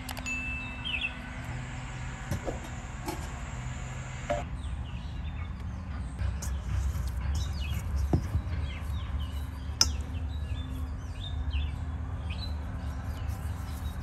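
Birds chirping repeatedly in short calls, over a low steady rumble with a few sharp knocks.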